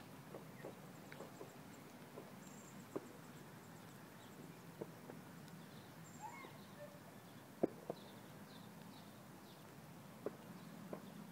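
Faint outdoor ambience: small birds chirping now and then, high and brief, over a steady low hum, with scattered light clicks, the sharpest about two-thirds of the way through.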